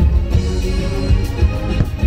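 Fireworks-show soundtrack music playing loudly, with held notes over a heavy low bass.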